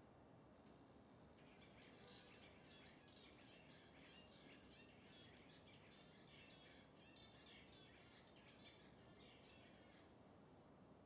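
Faint, rapid chirping of small birds, a dense chatter of short notes that starts about a second and a half in and stops a second before the end, over a steady low hiss.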